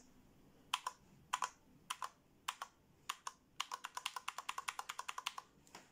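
Keys being pressed on a 60% mechanical keyboard with Cherry MX Red switches: a few single keystrokes, then a fast run of about seven or eight a second, then one more near the end. Each press has a slight ping, which the owner puts down to the board having no damping mat.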